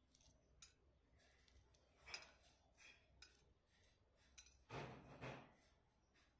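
Faint eating noises over near silence: a few small clicks and two soft rustling noises, one about two seconds in and a longer one near the end.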